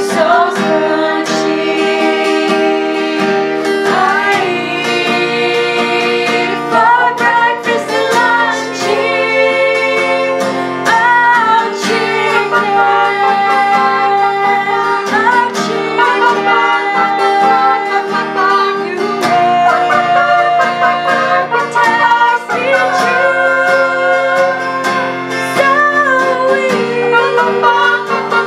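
Several girls' voices singing together, accompanied by an acoustic guitar.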